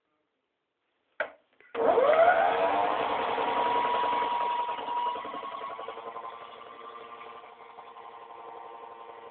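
Toy AEG washing machine's small electric motor starting a spin: a click, then the motor spins up, quickly rising in pitch, and runs steadily, getting gradually quieter over the last few seconds.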